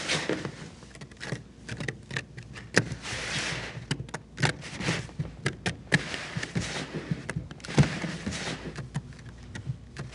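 Kinetic sand squeezed in the hands and crumbled apart onto a hard surface: a gritty rustling and crunching, dotted with many small crackles, that swells and eases as the hands work it.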